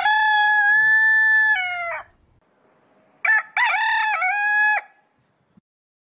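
Domestic rooster crowing twice, cock-a-doodle-doo. The first crow is already under way, a long held note that steps down in pitch and ends about two seconds in; a second, shorter crow follows about three seconds in.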